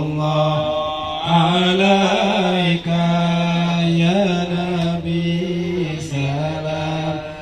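Islamic shalawat chanted by a voice in long, drawn-out melismatic notes that slide between pitches, with brief breaths between phrases.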